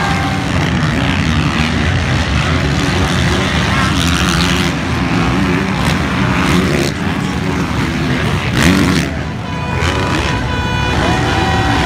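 Motocross dirt bikes racing on the track, their engines revving and running loud without a break. Near the end one engine holds a steady high pitched note for a couple of seconds.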